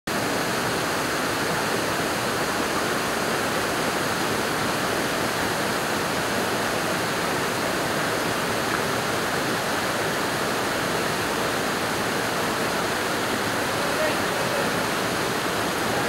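Waterfall pouring down a rock face: a loud, steady rush of water that does not change.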